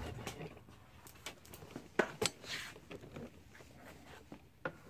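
Handling noise: scattered light clicks, taps and knocks, the sharpest a pair about two seconds in, with a short rustle just after them.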